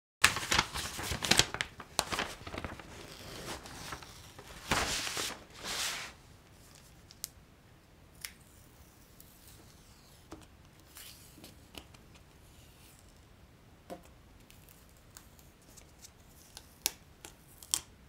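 Masking tape and a stencil sheet being peeled off a freshly spray-painted part: loud ripping rasps for the first six seconds, then quieter crackles and small clicks as the stencil is lifted away.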